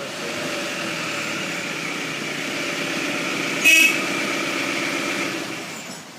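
A motor vehicle running steadily, with a short horn toot partway through; the sound fades away near the end.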